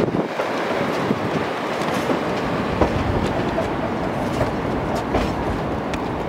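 Narrow-gauge passenger train running, heard from its rear car: a steady rumble of wheels on the rails, with scattered sharp clicks and knocks from the track.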